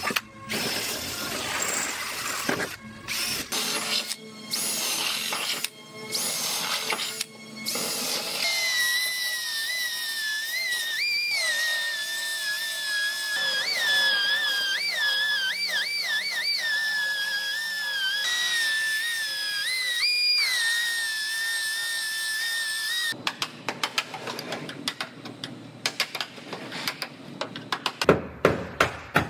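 Handheld grinding and sanding tools working bare steel body panels, starting and stopping at first. Then a steady high whine runs for about fifteen seconds, its pitch jumping up and dropping back several times as the tool comes off and back onto the metal. A few sharp knocks come near the end.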